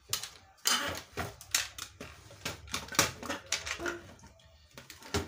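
Irregular clicks and knocks of plastic and metal parts as hands handle an opened computerised sewing machine's casing, display panel and wiring connectors.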